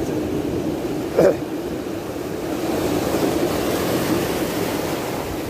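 Ocean surf washing and breaking around the shoreline, with wind buffeting the microphone in a steady rumble. A short thump about a second in is the loudest moment, and the hiss of washing water swells past the middle.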